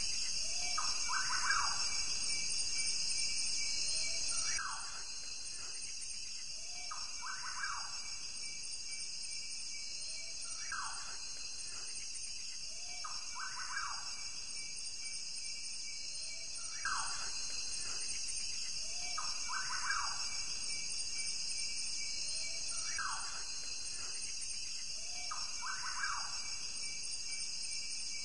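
Steady high chirring of an insect chorus, with a bird repeating a short falling call about every three seconds, alternating single calls and pairs.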